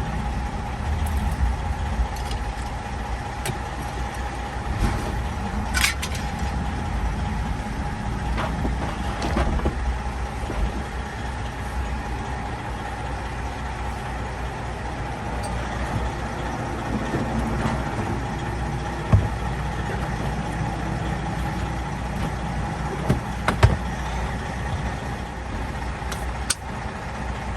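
Heavy diesel truck idling steadily: a low rumble with a thin, steady hum above it. A few sharp clicks and knocks from parts being handled stand out here and there.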